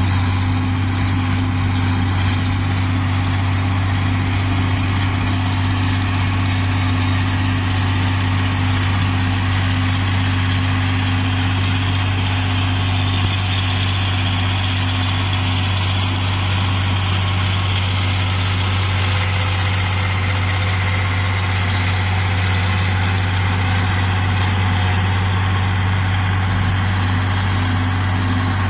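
Fiat AD12 crawler tractor's engine running at a steady pace while pulling a plough, a constant low drone.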